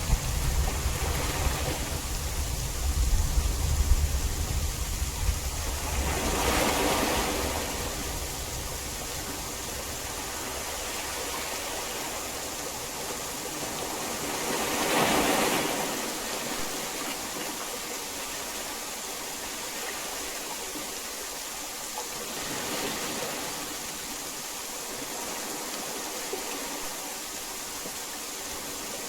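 Heavy rain falling as a steady, even hiss. A low thunder rumble dies away over the first several seconds, and the rain swells briefly twice, about a quarter and halfway through.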